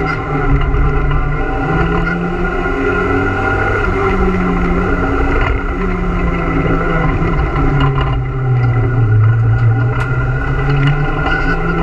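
Renault Super 5 GT Turbo's turbocharged 1.4-litre four-cylinder engine running hard under load, heard from inside the cabin. Its pitch climbs and drops several times as the driver accelerates and shifts, with a few sharp clicks near the end.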